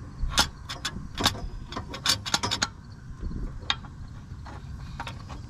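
Socket ratchet clicking as it turns a front hub assembly bolt: sharp clicks in short runs, thickest about two seconds in, then sparser.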